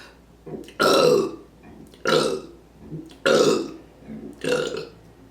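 Four loud human burps in a row, about a second apart, each lasting about half a second. They are brought up after drinking beer and ginger ale.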